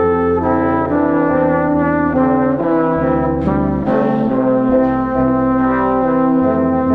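Background music of brass instruments playing held notes and chords that change every second or so.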